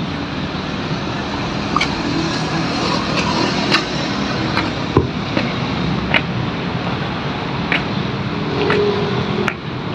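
Steady noise of road traffic passing, with scattered short clicks and taps.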